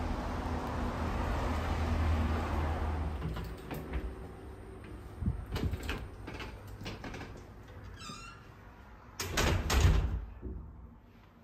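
Footsteps on tiled steps, then a brief high squeak about eight seconds in and a heavy door closing with a thud just after. A steady outdoor rush and low hum fill the first few seconds, and it falls quiet after the door shuts.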